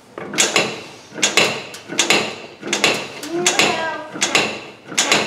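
Hydraulic motorcycle lift table being pumped up, a metallic clank-and-creak with each pump stroke, about one stroke every three-quarters of a second, as the loaded deck rises.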